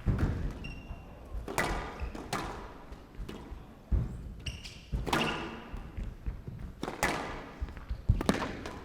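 Squash rally: the ball struck by rackets and smacking into the court walls, sharp knocks about every one to one and a half seconds, with short high squeaks of players' shoes on the court floor between them.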